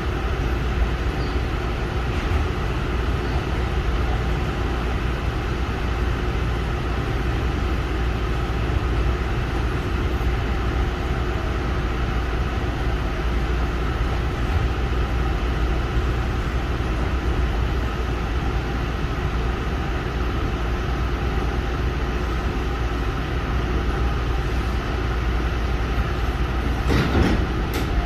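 Tobu Tojo Line electric train running, heard from on board: a steady rumble of wheels on rail, with a few sharp clacks near the end.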